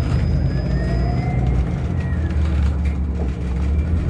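City transit bus running, heard from inside the cabin: a steady low engine rumble with a faint whine that rises and then falls.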